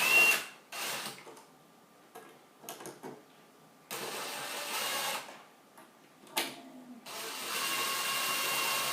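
Electric screw gun driving screws into pre-drilled wood, its motor whining in three runs: one ending just after the start, a short one around the middle, and a longer one near the end. A few short knocks fall between the runs.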